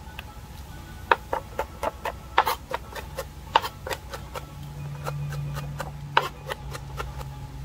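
Chef's knife chopping diced peppers, onion and thyme on a plastic cutting board: a run of sharp, uneven knocks, several a second, from about a second in until near the end. A low steady hum sits underneath from about three seconds in.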